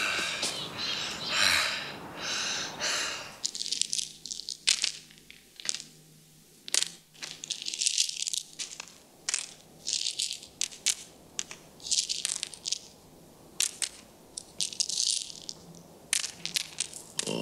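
About three seconds of crunching, then small hard tablets and capsules being handled: irregular sharp clicks and rattles mixed with short crinkling rustles.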